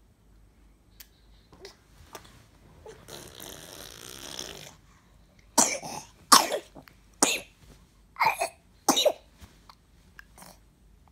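A six-month-old baby with a cold coughing: about five sharp coughs over some four seconds, after a second or two of breathy hissing.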